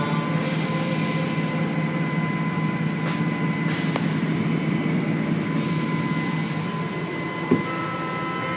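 Automatic car wash running, heard through a viewing window: spinning cloth brushes and water spray over a steady machine hum. There are several short high hisses and a single thump near the end.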